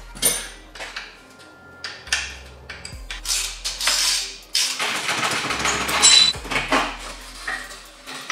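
Metal parts and tools clinking, tapping and scraping during motorcycle restoration work, with a longer stretch of scraping in the middle, over background music with a low bass line.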